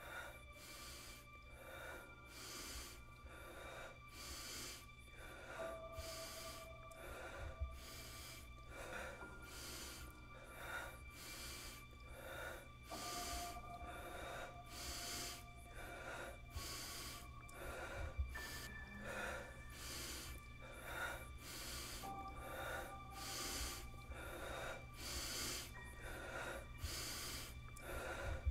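Rapid, heavy breathing in an even rhythm, one breath about every two-thirds of a second, over faint background music of held tones that step to a new pitch every few seconds.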